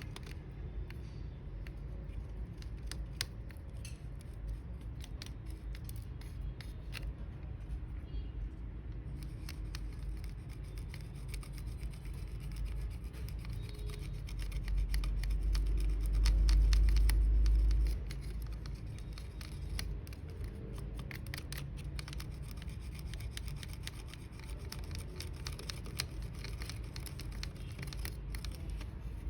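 Small clicks, scratches and rubbing of hands and small tools working on the parts of a wireless computer mouse at close range, with a louder low rumble about fifteen to eighteen seconds in.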